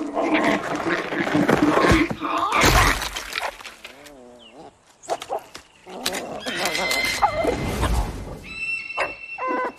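A large eggshell cracking and shattering with a loud crash about two and a half seconds in, among a meerkat's chattering, warbling calls.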